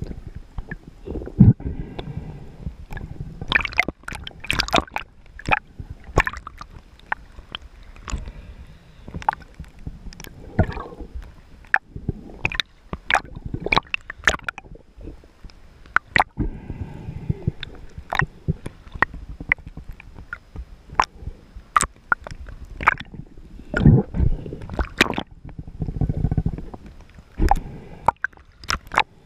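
Water sloshing and gurgling around a camera at and just under the water's surface, with many sharp clicks and pops.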